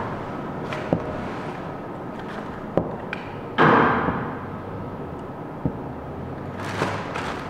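Steady background hum with a few short sharp knocks and two louder, softer bumps, one about halfway through and one near the end.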